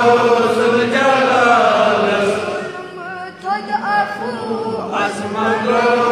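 A crowd chanting a Kashmiri hamd, a devotional hymn praising God, together. About three seconds in the group drops back and a single voice sings an ornamented, wavering line. The crowd comes back in near the end.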